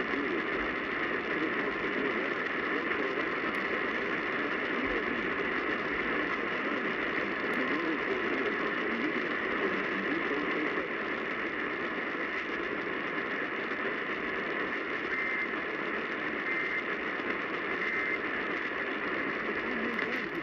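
Steady hiss and static from an AM radio on weak reception, with three brief faint beeps in the second half.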